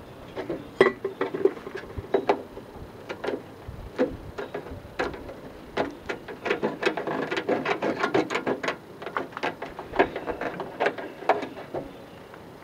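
Tin snips cutting and trimming the edge of a downspout hole in a rain gutter: an irregular run of crisp snips and clicks, busiest in the middle.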